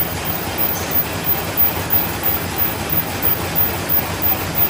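Oyang B220 high-speed SOS paper bag making machine running at production speed of 220 bags a minute: a steady mechanical clatter with a regular beat of a few strokes a second.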